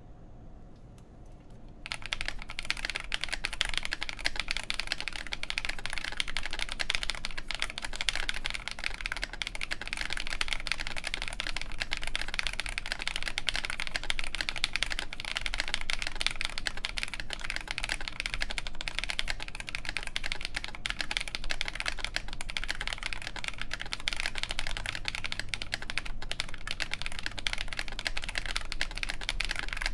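Mechanical keyboard typed on quickly and continuously: a Nooir Noland N1 with OneKey Momo Oolong linear switches on a full FR4 plate and MTNU Graphite keycaps. The keystrokes start about two seconds in.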